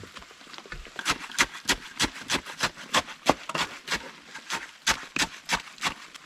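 Wet cement being jabbed and tamped around a freshly set post: a quick run of sharp strikes, about three a second, that starts about a second in and stops shortly before the end.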